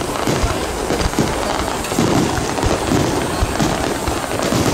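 Fireworks bursting in quick succession, many sharp bangs and crackles close together over a continuous rumble.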